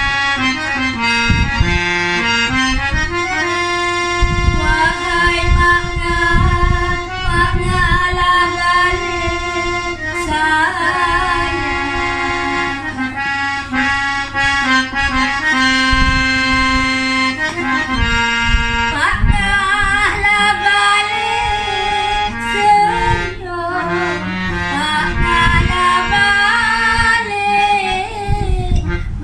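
Malay ghazal music: a reed instrument carries the melody in sustained, ornamented lines over a steady hand-drum beat.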